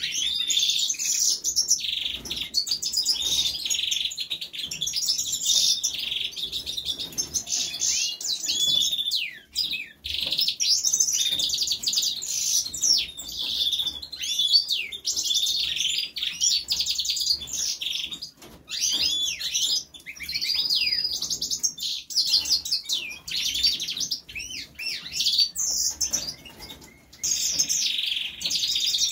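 Seven-month-old European goldfinch singing: a long, fast twittering song of trills and slurred notes, broken by a few brief pauses.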